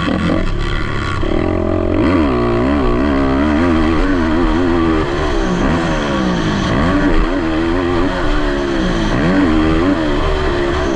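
Racing ATV quad engines revving hard, their pitch climbing and dropping over and over as the riders open and close the throttle, with more than one machine running at once.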